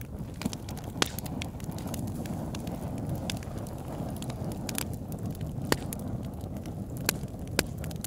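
Fire burning with a steady low rush and sharp crackles and pops scattered through it. The loudest pops come about a second in and several times in the last three seconds.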